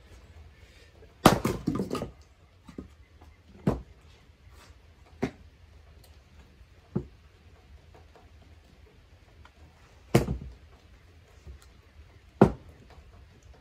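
Hand splitting of hardwood firewood: sharp wooden thunks and knocks at uneven intervals, from a maul striking rounds and split pieces falling and knocking together. There is a quick cluster of loud knocks about a second in, lighter single knocks after, and two heavy hits near the end.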